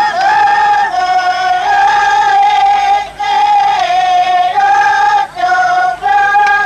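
A high female voice singing a simple melody of held notes, moving back and forth between two or three nearby pitches with short breaths between phrases.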